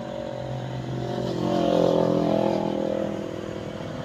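A motorcycle going past, its engine growing louder to a peak about two seconds in and then fading, over a steady low hum of other traffic.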